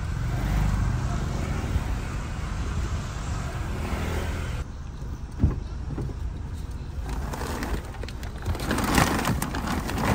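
Low steady rumble inside a car. Then a sharp knock about five seconds in, and crinkly plastic rustling with small knocks near the end as a plastic-wrapped sack of dog food is set on the back seat through the open rear door.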